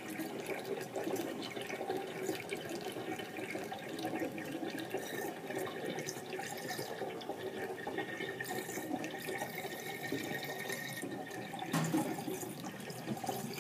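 Water gurgling steadily as it drains from a stainless steel kitchen sink down the open drain hole, the sink nearly empty.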